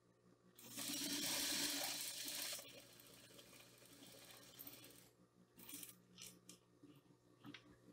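Domestic sewing machine stitching a seam in one fast run of about two seconds, starting just under a second in, then quieter fabric handling with a few light clicks.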